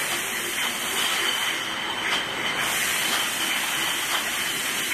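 Bottle-washing machine running: a steady hiss with a thin high whine, and glass bottles clinking lightly now and then as they are fed in.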